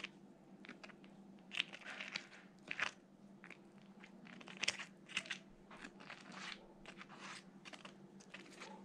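Faint, irregular crunching and scraping as a chocolate glaze full of crunchy chocolate cereal balls is spread over a cake.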